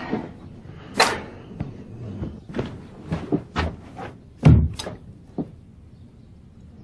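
Handling noises: a string of soft knocks and rustles at uneven spacing, the loudest about four and a half seconds in.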